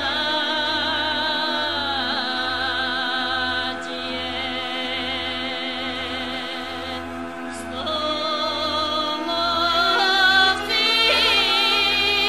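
Background music: long held notes with a wavering vibrato over a steady drone, and a soft, regular low pulse. It thins out in the middle and swells again about eight seconds in.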